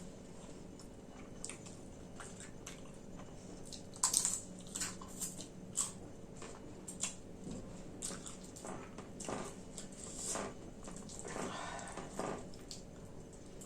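Close-up eating sounds of a person chewing mouthfuls of khichdi: wet mouth noises with a cluster of sharp clicks about four to six seconds in, and a longer noisier stretch near the end.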